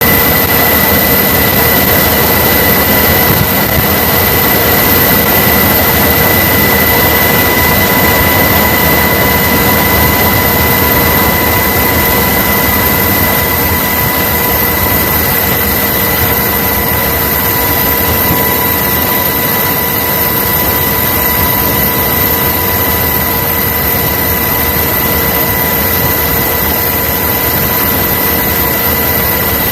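Jet aircraft engine running steadily at close range, a loud, even rush of noise with several fixed high whining tones on top.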